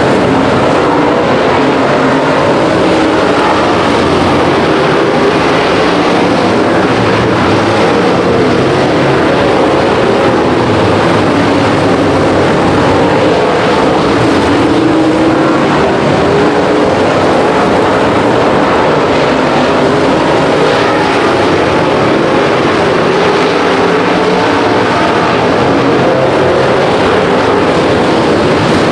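Dirt-track race cars' engines running hard in a pack, loud and continuous, their pitch rising and falling a little as the cars lap.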